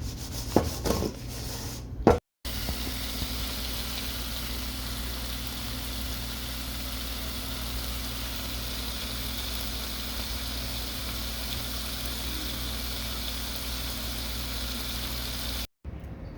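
Bacon frying in a pan: a steady, even sizzle over a low hum, after a couple of sharp knocks in the first two seconds.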